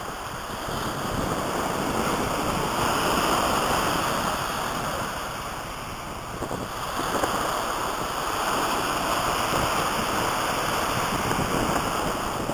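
Sea waves breaking and washing up a shingle beach, the surf swelling twice, with wind on the microphone.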